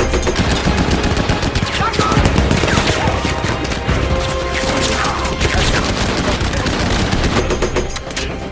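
Sustained machine-gun fire from several guns at once, dense rapid shots with no break. Near the end a gun clicks.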